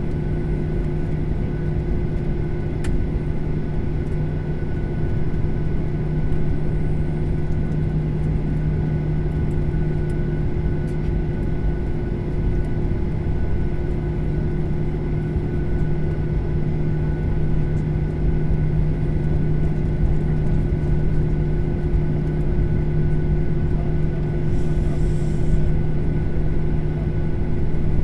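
Jet airliner's engines and cabin noise heard from inside the cabin while taxiing: a steady low rumble with several steady hums, not rising or falling.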